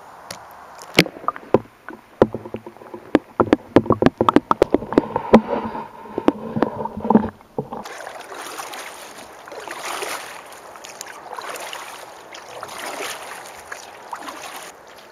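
A run of sharp knocks and taps against a canoe, then, after a sudden change about eight seconds in, paddle strokes in the water: swishing and dripping that swell and fall every second or so.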